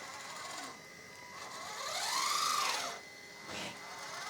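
Small electric-driven hydraulic pump of a 1/14 RC excavator whining under load while the upper body is slewed. Its pitch rises and falls back once, then climbs briefly again near the end.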